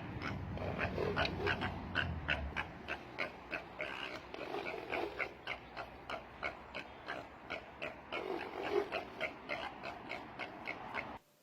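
An animal making rapid, repeated short calls, about three or four a second. The calls cut off suddenly near the end.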